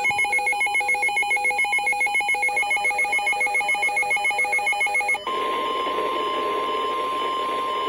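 Emergency alert tones: an electronic warble flipping rapidly between two pitches, about eight times a second, for about five seconds. It then switches to a single steady alert tone near 1 kHz, the NOAA Weather Radio warning tone, heard over radio static.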